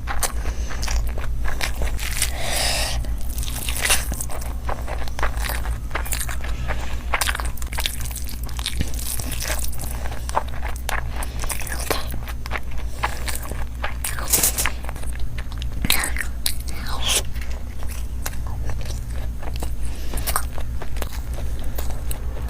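Close-miked chewing and biting of chicken curry and fried rice, a run of short, irregular mouth clicks over a steady low hum.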